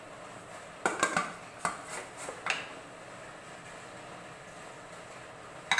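Metal lid of a Prestige Deluxe pressure cooker being set on the pot and closed: a handful of clanks and knocks over the first two and a half seconds, then a single knock near the end.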